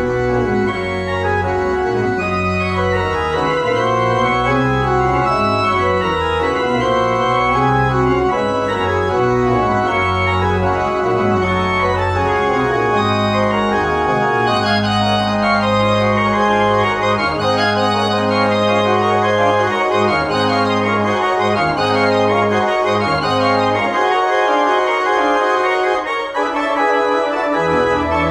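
Organ music played on the manuals and pedalboard: sustained chords over slow-moving pedal bass notes. The deep pedal bass drops out for a few seconds near the end, then comes back.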